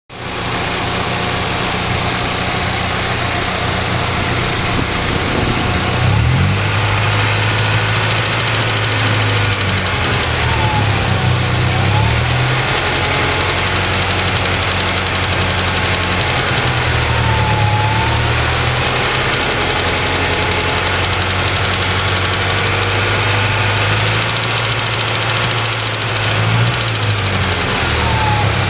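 Nissan Z24 four-cylinder engine idling steadily, its speed dipping briefly a few times, with an odd noise in its running that its owner cannot identify.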